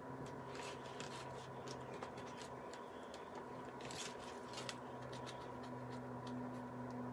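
Faint scratching and rustling of hands working a sponge fake cake slice on a plastic plate, with a few light clicks, over a steady low hum.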